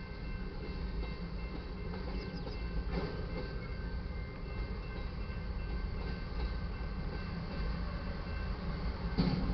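Freight cars of a manifest train rolling past on the rails: a steady low rumble of steel wheels on track, with a sharp knock about three seconds in and a louder one near the end.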